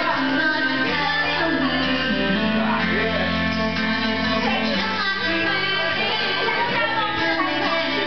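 A recorded song with a singing voice over a backing track and sustained low bass notes, played loud and without a break.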